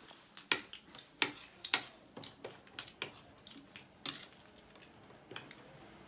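Metal spoons and forks clicking and scraping against ceramic plates as several people eat, in irregular sharp clinks, the loudest in the first two seconds.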